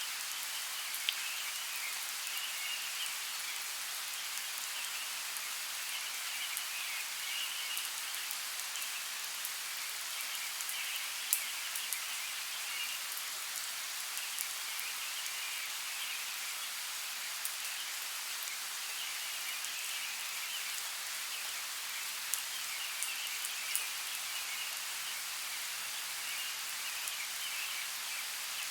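Steady light rain falling in a forest, with scattered sharp drop ticks. A faint high chirring chorus swells and fades every few seconds behind it.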